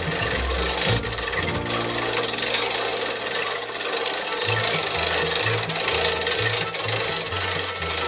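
Hand-cranked log-loading winch on a Woodland Mills HM130MAX sawmill, rasping steadily as it is wound to haul a log up onto the mill, with a few short knocks about a second in. Background music with a shifting bass line plays underneath.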